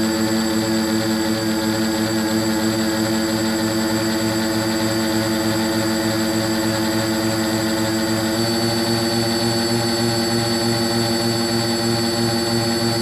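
Brushless motors and propellers of a Simplecopter tricopter whining steadily in flight, heard up close from the camera mounted on the airframe. The pitch shifts slightly about eight seconds in and again near the end as the throttle changes.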